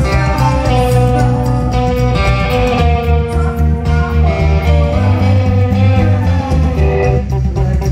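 Live rock band playing through a venue PA during a sound check, with guitar and bass to the fore.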